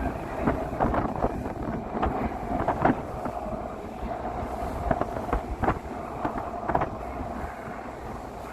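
Boat's engine running steadily on a tour boat, with wind buffeting the microphone and irregular knocks and clacks throughout.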